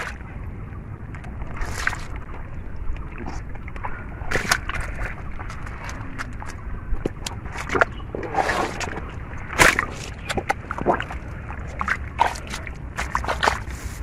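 Hands sloshing and squelching in shallow muddy water among grass, in irregular splashes and wet clicks, over a low steady rumble.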